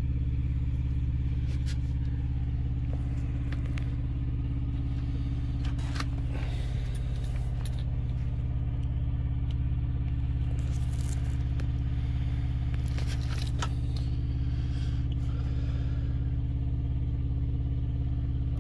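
A diesel engine idling steadily, a low, even hum with no change in speed. A few light clicks and scrapes come over it about six, eleven and thirteen seconds in.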